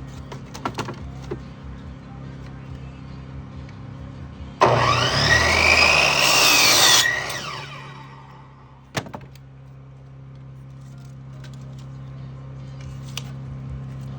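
An electric power saw runs up and cuts through a wooden board for about two and a half seconds, its pitch rising and falling, then winds down. A single sharp knock follows, over a steady low hum.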